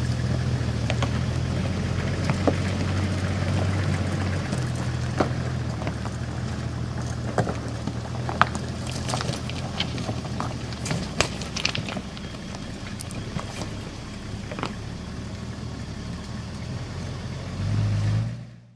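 A four-wheel-drive vehicle's engine runs with a low hum as it drives off along a dirt track and slowly fades, with scattered sharp clicks and knocks. There is a brief swell near the end, and then the sound cuts off suddenly.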